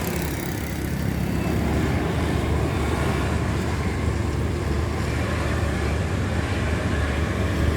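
Road traffic: a vehicle engine's steady low rumble with road noise, running at an even level throughout.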